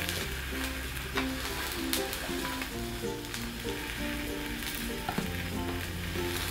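Food sizzling in a hot frying pan, a steady crackling hiss with a few sharp clicks of a utensil stirring.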